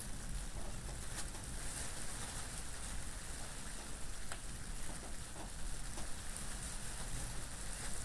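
Steady rain falling, with a low rumble of wind underneath and scattered ticks of single drops.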